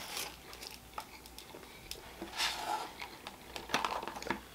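Quiet, close-miked chewing of a mouthful of foil-wrapped gyro, with small wet mouth clicks and a brief rustle a little past halfway.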